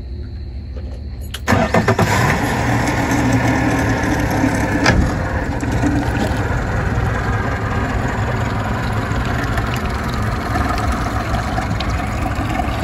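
Yamaha outboard motor cranks and catches about a second and a half in, then runs steadily at low speed as the boat pulls away. There is a single sharp knock a few seconds after it starts.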